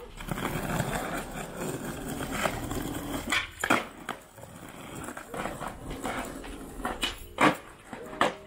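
Skateboard wheels rolling on rough asphalt, a steady gritty rumble, then a series of sharp wooden clacks from the board popping and landing, the loudest about seven seconds in.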